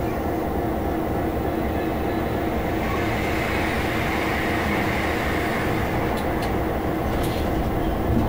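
Cab of a Class 66 diesel freight locomotive on the move: steady drone of its EMD two-stroke V12 engine with wheel-on-rail rumble. A rushing hiss swells around the middle as another train passes on the next track, and a few sharp clicks come about six and seven seconds in.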